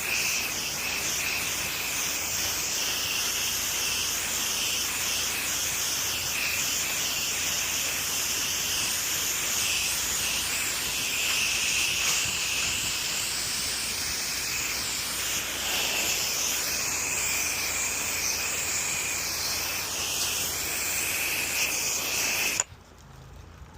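Pressure washer wand spraying a steady, hissing jet of water. It cuts off suddenly near the end as the spray stops.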